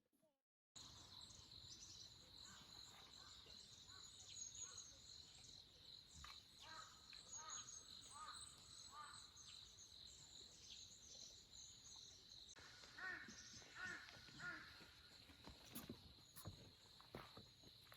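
Faint outdoor ambience: a steady high-pitched insect drone, with short bird calls in two runs of repeated notes, one in the middle and one later on.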